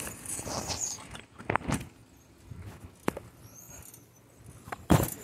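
Knocks and rattles on a moving bicycle over low road noise: a few sharp clicks, with the loudest knock near the end.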